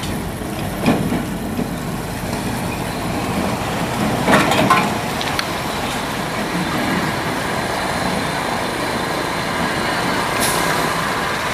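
Loaded Hino diesel logging truck approaching slowly on a dirt road, its engine running and growing gradually louder, with motorcycle traffic passing. A brief hiss comes near the end.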